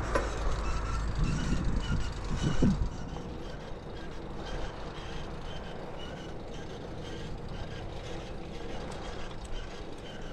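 Bicycle ride with a slack drive chain: wind and rolling rumble for the first few seconds, then a quieter, regular light chirp from the drivetrain about twice a second. The chain has too much slack.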